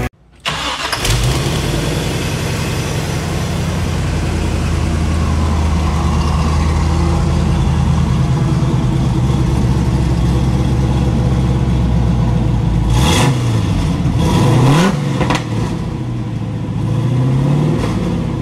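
Crate GM 350 small-block V8 with full-length headers, heard at the tailpipes: it starts up about half a second in and settles into a steady idle, then is blipped twice near the end, each rev rising and falling quickly back to idle.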